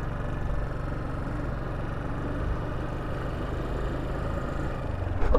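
Motorcycle engine running steadily while riding, heard from the rider's helmet: a low, even hum under a constant rush of road noise.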